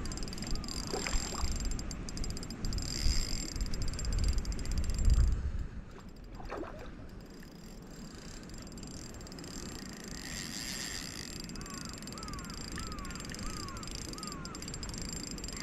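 Outdoor pond ambience: low wind rumble on the microphone for about the first five seconds. Near the end a bird calls a quick series of short repeated notes.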